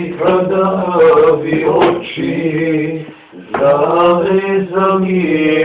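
A man singing a folk song unaccompanied, drawing out long held notes in two phrases with a breath between them about three seconds in.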